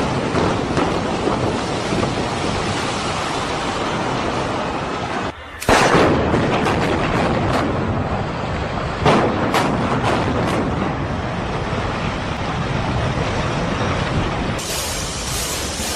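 Demolition blasts and the rumble of a collapsing building: a continuous rumble, broken briefly about five seconds in, then a sudden loud blast, with a second sharp blast about nine seconds in.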